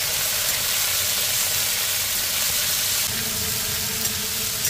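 Cauliflower and potato pieces, freshly added to hot oil, sizzling steadily in a steel wok while being stirred with a flat metal spatula.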